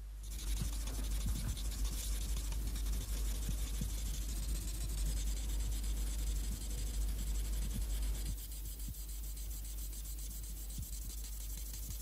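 Pencil scratching across paper in quick sketching strokes, over a low hum. The scratching softens from about eight seconds in.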